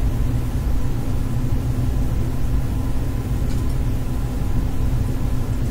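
Steady low hum and rumble, unchanging, with no distinct events.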